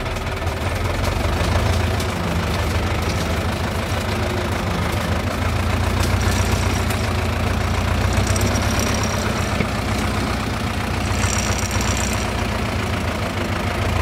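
Old tractor's engine running steadily as the tractor drives along, a constant low hum.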